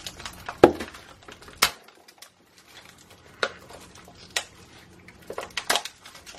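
Small hard-plastic toy backpack containers being handled and snapped open, giving a series of sharp plastic clicks and light clatter, with a few clicks close together near the end.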